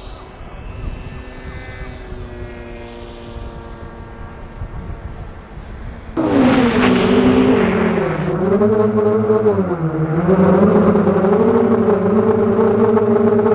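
F-16 jet flying over at a distance, a low rumble with a faint whine slowly falling in pitch. About six seconds in, this gives way suddenly to the loud, steady whine of an FPV quadcopter's brushless motors, its pitch dipping and recovering with the throttle.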